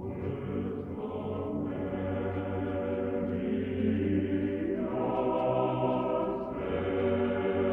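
Church choir singing slow, held chords without instruments, in the style of Russian Orthodox church singing; the chord changes a few times, about a second and a half in, near five seconds and again near six and a half.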